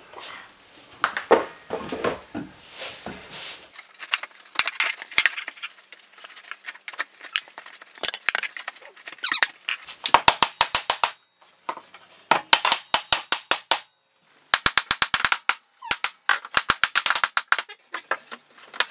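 Hammer striking the wooden cross braces of a canvas strainer frame: fast, even runs of sharp knocks with short breaks between them, after a few scattered knocks at the start.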